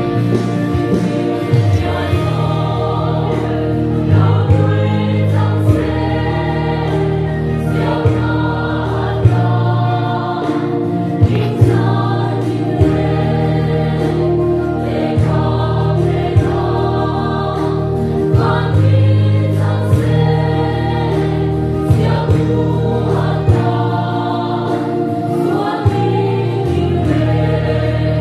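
Mixed choir of women's and men's voices singing a gospel song in Mizo, in harmony. A band accompanies them with low bass notes that change every second or two and sharp drum-like strikes.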